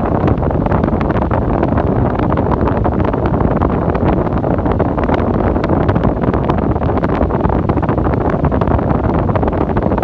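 Arno Ultra Silence Force electric fan running, its airflow buffeting the microphone as a steady, loud rush of wind noise with faint crackling.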